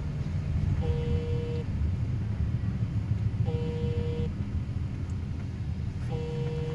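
Steady low rumble of a car's cabin while driving slowly along a city street. Over it, a short steady electronic beep sounds three times, about every two and a half seconds.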